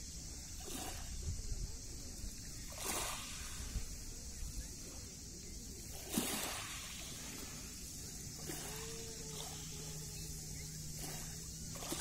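Small waves on a calm Black Sea lapping at a pebble beach, with a few soft washes of water over the stones. A faint steady low hum comes in about two-thirds of the way through.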